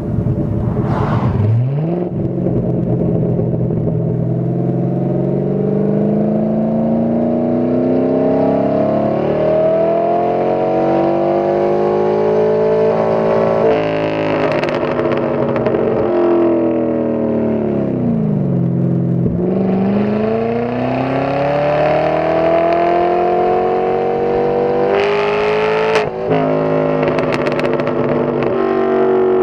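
Pontiac G8 GXP's LS3 V8 through a straight-piped exhaust with long-tube headers and an X-pipe. The engine pitch climbs slowly for about ten seconds, then falls away, then climbs again, with a brief break near the end, like a shift.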